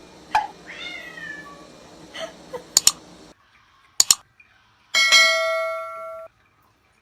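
A cat meows once, a short falling call about a second in, followed by a few sharp clicks in pairs. About five seconds in, a bell-like ding rings for just over a second and then cuts off abruptly.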